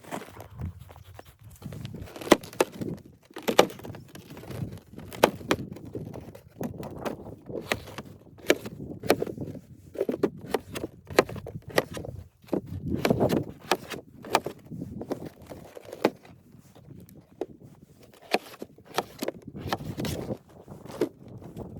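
Irregular sharp knocks and crunches, roughly one a second, with low rustling between them.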